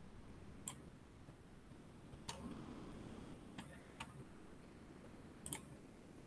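Faint computer mouse clicks, about five of them at irregular spacing, over a quiet room.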